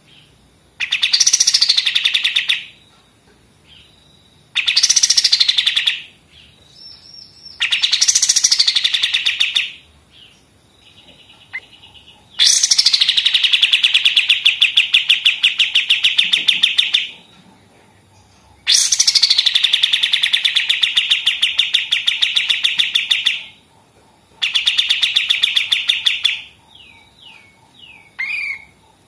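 A kapas tembak, an Indonesian songbird, singing in bursts of very fast, rattling repeated notes like machine-gun fire. There are six phrases of about one and a half to five seconds each, with the longest two in the middle.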